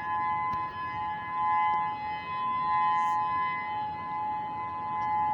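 Civil defense outdoor warning siren sounding one steady, unwavering tone made of two close pitches, Hawaii's attention alert signal for the monthly siren test.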